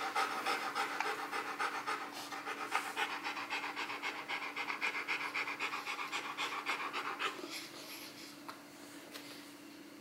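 Rottweiler panting fast and steadily, mouth open, the panting fading out about three-quarters of the way through.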